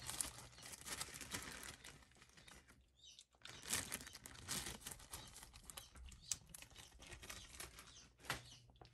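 Plastic bag of dried zucchini chips crinkling and rustling as it is handled, in irregular bursts with a short pause about three seconds in. A faint steady low hum runs underneath.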